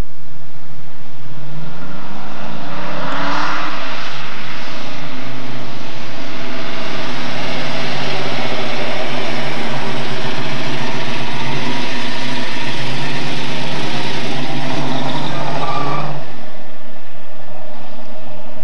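1970 Ford Mustang Boss 302's V8 engine pulling away with the revs climbing, dropping back as it shifts up, then running on as the car drives past; the engine note falls away sharply near the end.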